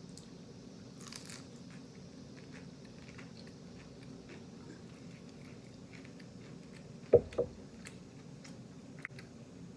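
Close-up eating of crispy fried chicken: a crunchy bite about a second in, then faint chewing and mouth clicks. Two loud, low thumps come just after seven seconds, one right after the other.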